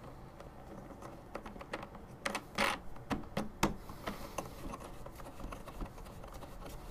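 Small clicks and taps of a bolt, washer and plastic parts being handled while they are fitted to a snowblower's plastic chute mount, with a few louder clicks between about two and four seconds in.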